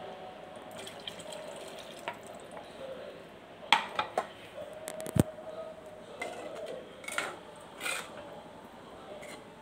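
Steel spoon stirring a thin gravy, just loosened with water, in a clay pot: liquid sloshing, with a few sharp clinks of the spoon against the pot, the loudest about five seconds in.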